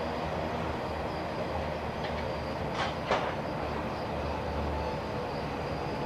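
Coal hopper wagons rolling across a railway bridge: a steady low rumble of wheels on rail, with two short sharp sounds close together about three seconds in.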